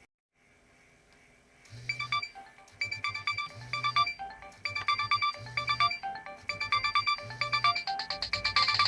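Nokia 6820 polyphonic ringtone starting after a brief silence, about a second and a half in. It is an electronic melody with a steady repeating bass beat under bright, quick notes.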